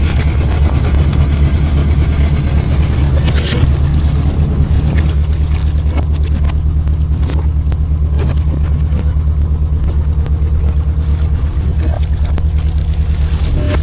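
A fishing boat's engine running steadily with an even low drone, with scattered light clicks and knocks over it.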